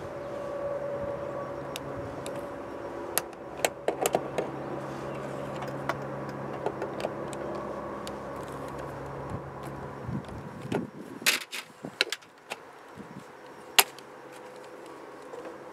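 Screwdriver loosening screws in the metal mounting bracket of a plastic retractable tie-out reel, with small metallic clicks and clinks. Then a burst of louder knocks and clicks as the reel is popped up and off the screws. A steady background mechanical hum runs underneath and cuts off about ten seconds in.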